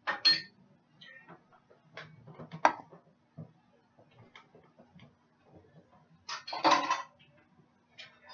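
Clinks and clatters of a pan and kitchen utensils being handled: a few separate knocks, then a longer clattering run about six to seven seconds in, over a faint steady hum.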